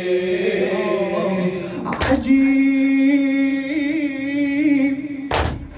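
A solo male voice sings an Arabic Shia lament (latmiya), holding long wavering notes that step up in pitch partway through. Two sharp thumps come about three and a half seconds apart.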